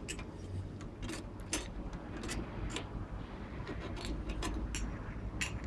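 Light, scattered clicks and taps as a projector lamp is pushed back and seated in its metal housing by hand.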